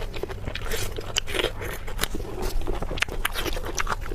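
Close-miked mouth sounds of eating spicy pork belly: biting and chewing, heard as a quick, irregular run of short crunchy clicks and crackles.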